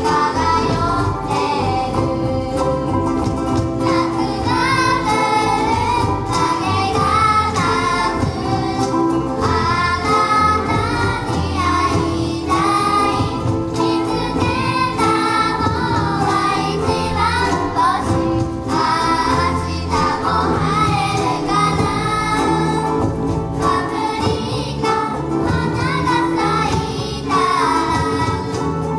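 A children's ukulele ensemble strums and sings a pop song in unison, with cajóns keeping the beat.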